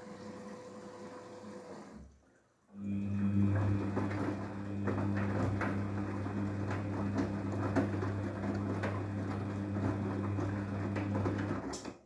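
Daewoo DWD-FT1013 front-loading washing machine in its softener rinse. Water runs in with a steady hiss for about two seconds. After a brief pause the drum motor starts with a steady low hum, and the drum turns the soaked laundry with splashing and sloshing until the machine stops just before the end.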